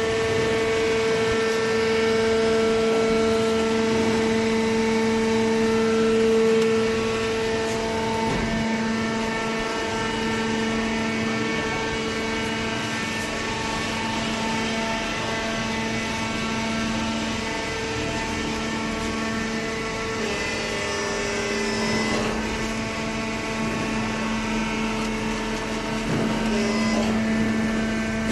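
Cardboard baler machine running with a steady pitched hum and whine; the tone and level shift slightly about eight seconds in and again about twenty seconds in.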